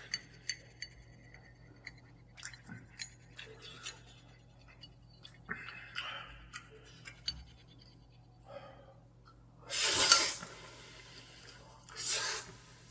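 Chopsticks clicking on a ceramic bowl, then a loud slurp of Buldak fried noodles about ten seconds in and a shorter slurp near the end.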